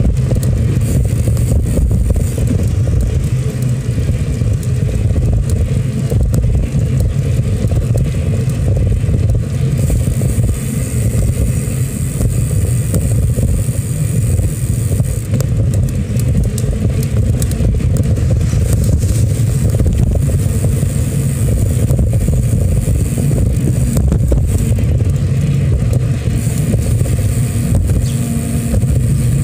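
Steady low rumble of wind and road noise from riding along a city street, with no distinct events standing out.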